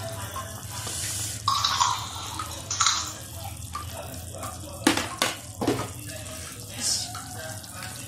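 Broth of a beef rib and vegetable soup sloshing and splashing as it is stirred and scooped with a plastic ladle in a pan, with a few sharp knocks a little past the middle.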